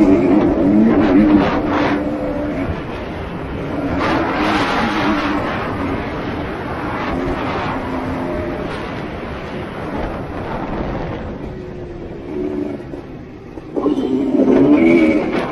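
Motocross bike engine revving up and down as it is ridden hard, its pitch rising and falling with the throttle. It drops off for a moment near the end and then comes back loud.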